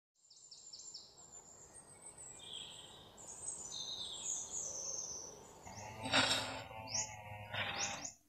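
Birds chirping outdoors, with many short, high calls. Two louder, harsher sounds over a low hum come about six and about seven and a half seconds in.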